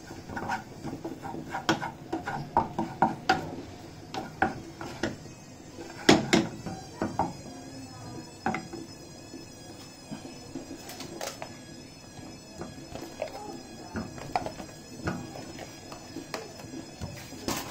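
Wooden spoon knocking and scraping against a frying pan while stirring meatballs and onions. The knocks come thick and fast for the first several seconds, then grow sparse as the stirring slows.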